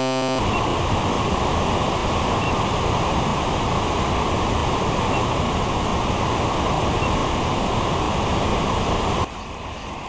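Waterfall in spate after heavy rain: a dense, steady rush of heavy, muddy water pouring over rock into a churning plunge pool. Shortly before the end it cuts abruptly to a much quieter background.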